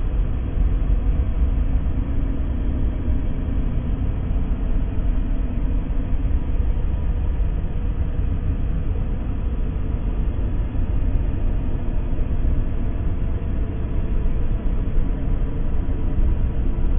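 Sci-fi space planet ambience sound effect: a steady deep rumble with a few faint held tones above it, unchanging throughout.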